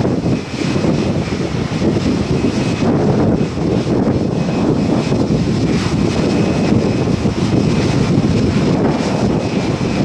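A Boeing 787 airliner's jet engines running at low power with a steady faint whine, under gusty wind buffeting the microphone.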